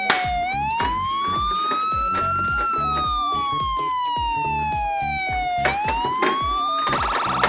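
Toy ambulance's electronic siren sounding a slow wail that rises and falls in pitch twice, then switches to a fast warble about seven seconds in. A few sharp clicks are heard along with it.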